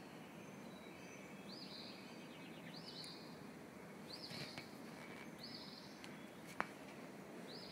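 A bird giving a high, arching chirp over and over, about once every second and a quarter, over a steady background hiss. A single sharp click near the end.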